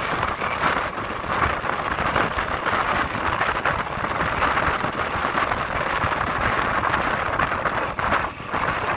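Passenger train carriage in motion, heard from an open window: a steady rush of wind with the rumble of wheels on the rails, dipping briefly near the end.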